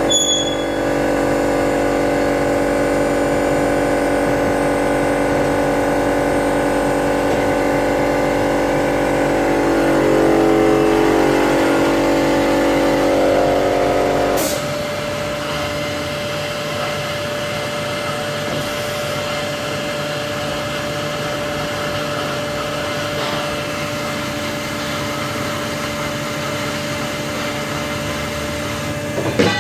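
CNC automatic metal band saw running its programmed cutting cycle: a steady machine whine of several tones, which about halfway drops to a quieter steady hum with a single tone. A short click comes near the end.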